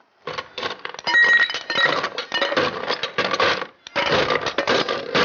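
Ice cubes being scooped into a metal cocktail shaker: a fast run of clinks and clatters, with a short pause about four seconds in.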